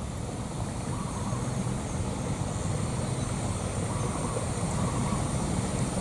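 Steady low outdoor rumble with a faint, steady high-pitched hiss above it; no distinct calls or knocks.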